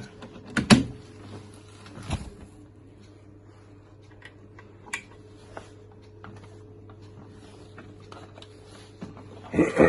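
A few sharp knocks and scattered small clicks of handling over a steady low hum, with a louder clatter near the end.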